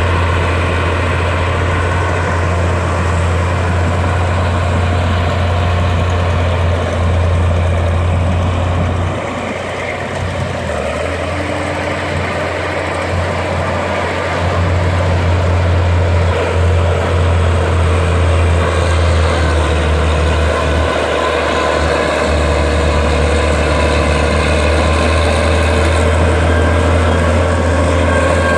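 Crawler bulldozer's diesel engine running under load with a steady low drone. It eases off about ten seconds in, then picks up again a few seconds later.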